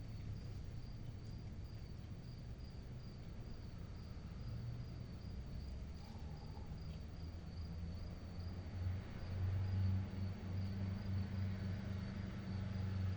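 A cricket chirping in a steady train of high, evenly spaced pulses through a night ambience, over a low rumble that grows louder in the last few seconds.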